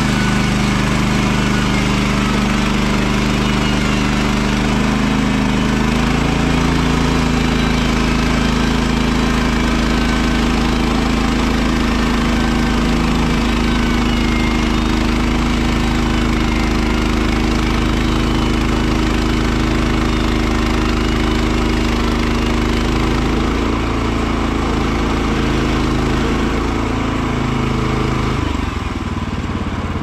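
Kohler gasoline engine of a Woodland Mills HM130 Max portable bandsaw mill running steadily just after its first start of the day. Its pitch shifts slightly about six seconds in, and it eases off near the end.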